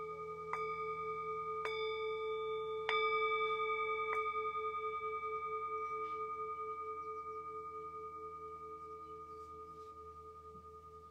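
Metal singing bowl struck with a mallet four times, about a second apart, the third strike the loudest, then left to ring out. Its hum wavers in a slow pulse as it fades.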